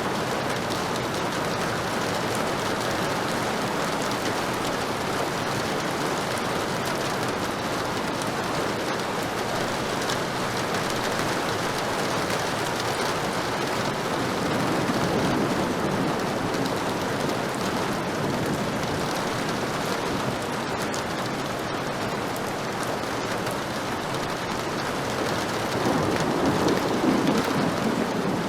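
Heavy rain falling steadily, with low rolls of distant thunder swelling about halfway through and again near the end.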